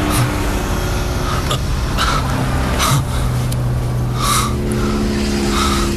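A wounded man's short pained gasps and breaths, several in a row, over a low steady drone.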